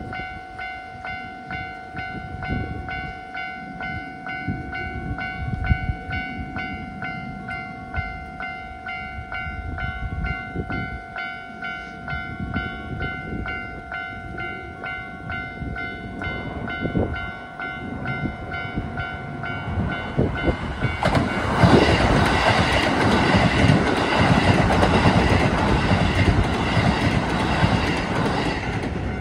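Level crossing alarm ringing over and over as a Keisei 3000 series electric train approaches. About two-thirds of the way in, the train runs through the station at speed without stopping, and its wheels and running gear on the rails rise into a loud rush that drowns out the bell.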